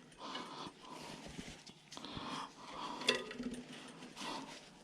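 Faint rubbing and handling noises as small bicycle hub parts are wiped clean, with a light click about three seconds in.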